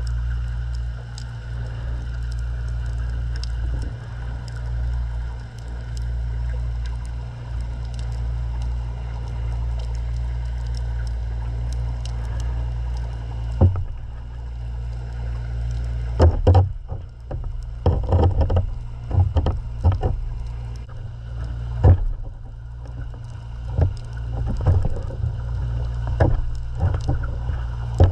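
Muffled underwater rumble picked up through a GoPro's waterproof housing. From about halfway through, a string of sharp knocks and thumps comes in, irregular and close together.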